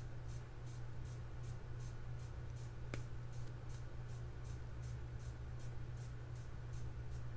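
Faint handling of a Sig P320 fire control unit's small metal parts: light scratchy rubbing as the takedown pin is worked back out, with one small click about three seconds in, over a steady low hum.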